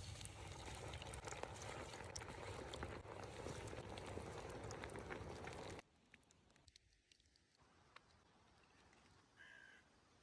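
Chicken pieces deep-frying in hot oil: a dense sizzle full of popping crackles, cutting off abruptly about six seconds in. Then faint ambience, and a crow caws once near the end.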